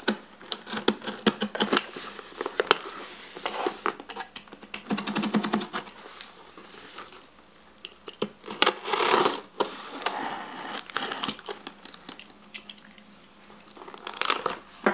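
Utility knife slitting the packing tape along the seams of a cardboard shipping box: short rasping cuts, crinkling tape and many small clicks and scrapes as the box is handled and turned.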